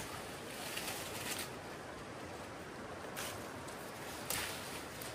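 River water rushing steadily, with a few short louder bursts of noise, the clearest about three and four seconds in.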